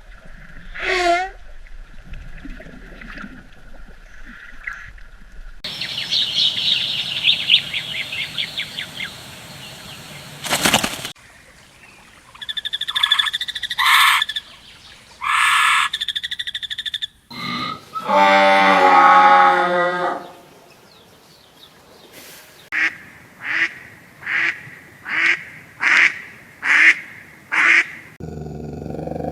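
A string of different animal calls in turn. It ends with a regular series of about eight short calls, roughly one every three quarters of a second.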